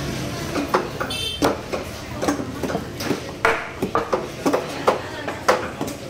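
Heavy knife chopping through a koduva (Asian seabass) on a wooden block: irregular sharp strikes, about two a second. A short high beep sounds about a second in.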